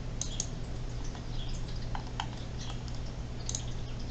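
Computer mouse clicks and scroll-wheel ticks, a few short scattered clicks over a steady low hum.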